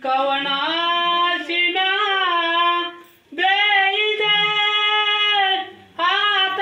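A single high voice singing devotional wedding verses in long, drawn-out held notes, breaking off briefly twice. This is typical of the mangalashtak verses sung while the cloth screen is held up at a Tulsi Vivah.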